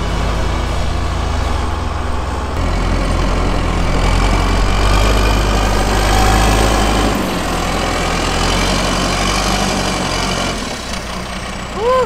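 John Deere 310SJ backhoe loader's diesel engine running while it pushes snow, louder for a few seconds in the middle, then quieter near the end.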